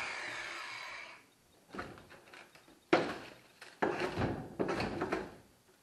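A hand-held power tool spinning an abrasive stripping disc winds down over the first second, its pitch falling. Then come scattered clunks and rattles of tools and metal being handled, a sharp knock about three seconds in and a busier cluster of knocks about a second later.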